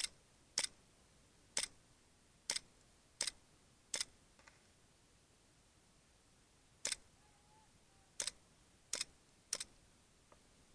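Airsoft gun firing single shots: about ten sharp, short snaps at irregular intervals, with a pause of about three seconds midway.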